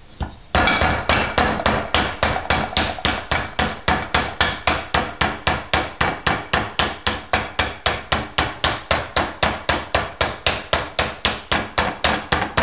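A flat wooden spatula rapidly whacks the rind of a halved pomegranate set cut-side down in a pomegranate deseeder bowl, knocking the seeds out. The strikes start about half a second in and keep up an even beat of about four sharp whacks a second.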